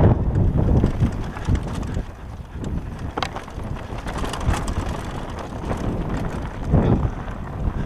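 Downhill mountain bike riding fast down a dirt and gravel trail, heard from an onboard camera: tyres rolling over dirt and stones, the bike rattling with scattered clicks, and wind buffeting the microphone. It eases off after about two seconds and picks up again near the end.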